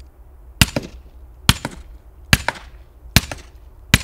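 Suppressed SIG MCX Rattler firing subsonic 300 Blackout, five sharp shots a little under a second apart, each followed a fraction of a second later by a fainter second crack. The rifle is being fired from about 90 yards away.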